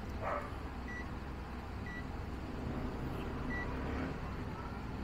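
A clamp multimeter's continuity buzzer giving three short, separate beeps at the same pitch as the probes make and lose contact on the electric fan's wiring. The beeps come and go because continuity through the circuit is intermittent.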